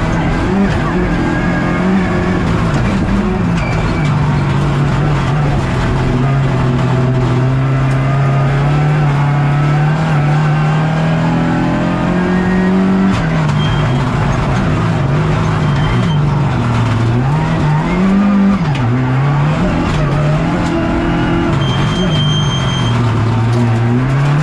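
Rally car engine heard from inside the cockpit at racing speed, over road and tyre noise. The engine note holds nearly level for several seconds midway, then drops and climbs again repeatedly through the second half.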